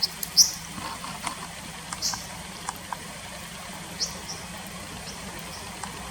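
Brown dipper giving short, sharp, high calls: a pair right at the start, one about two seconds in and another pair about four seconds in, over the steady rush of a stream.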